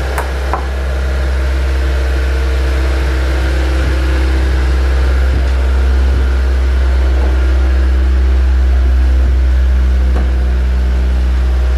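Honda Civic EG's 1.3-litre carbureted four-cylinder engine idling steadily as the car creeps forward at walking pace. It grows a little louder as the car draws closer.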